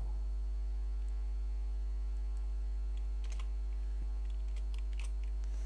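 Steady electrical mains hum with a ladder of overtones, and a few faint computer keyboard clicks in the second half.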